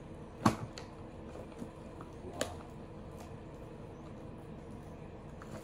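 Quiet room tone with a faint steady hum, broken by a few light taps: a sharp one about half a second in and another about two and a half seconds in.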